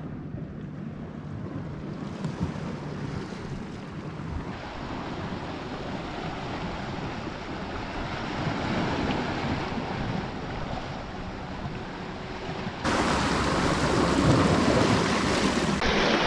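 Sea washing against rocks, with wind on the microphone; the wash gets louder and brighter near the end.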